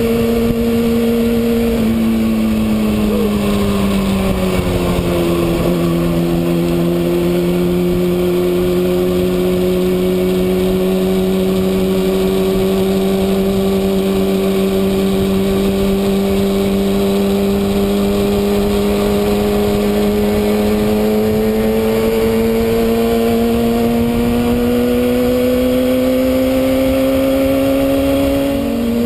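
Kawasaki ZX-6R inline-four engine running under way at steady revs: the pitch falls over a couple of seconds near the start, then climbs slowly and evenly, with a sudden small drop near the end.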